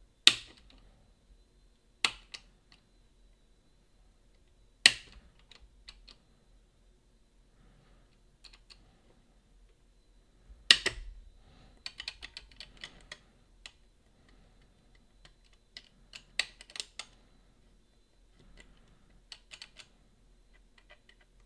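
Eight-lever Boda 429 deadbolt being picked: the pick and tension tool click sharply against the levers a few times, then lighter clusters of ticking as the levers are lifted one by one.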